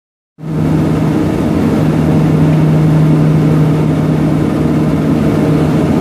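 Cabin noise of a Let L-410 Turbolet's twin turboprop engines during the descent to land. A steady propeller drone, a low hum with its overtones over a rushing haze, cuts in sharply just after the start.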